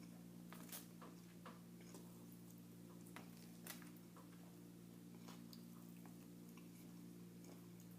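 Faint chewing and wet mouth clicks of a person eating, a few sharper clicks scattered through, over a steady low hum.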